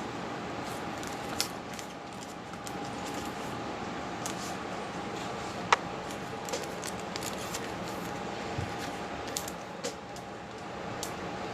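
Trading cards and packs being handled: scattered light clicks and rustles, one sharper click about six seconds in, over a steady faint hum.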